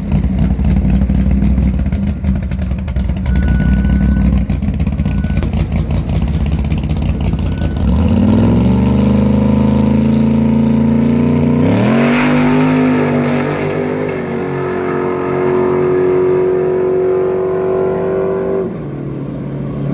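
Big-block V8 of a rat rod drag car running with a rough, lumpy note at the starting line, then revving up and launching at full throttle. The pitch climbs about eight seconds in and again about twelve seconds in, holds steady as the car pulls away down the strip, and drops off near the end as it lifts.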